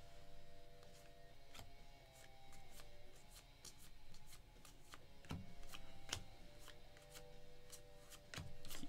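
2024 Panini Score football cards being handled and flipped through, a string of soft, irregular clicks and snaps. Faint music with held notes underneath.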